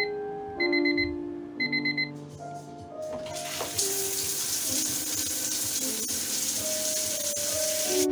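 Bedside alarm clock beeping in three quick bursts of rapid high beeps, then a shower spraying water steadily from about three seconds in. Piano music plays underneath throughout.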